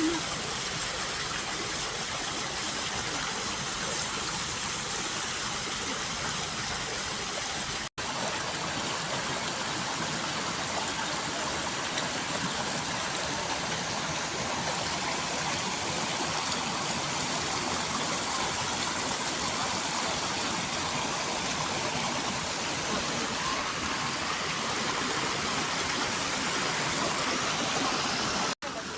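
Running water of a stream, a steady full rush, cutting out for an instant about eight seconds in and again just before the end.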